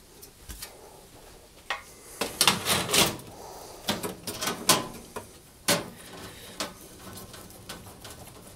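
Sheet-metal vent grille clanking and scraping against the metal body of a Rangemaster cooker as it is fitted into place: a string of sharp knocks, several close together about two to three seconds in, and a few more spread out to six and a half seconds or so.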